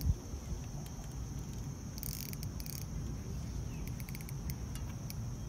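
Fishing reel's drag clicking as a hooked carp pulls line off the reel, in two short bursts about two seconds in, with scattered single clicks around them. A dull knock at the very start.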